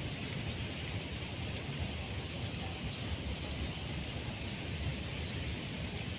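Wind rumbling on the microphone over a steady outdoor hiss, with no distinct events.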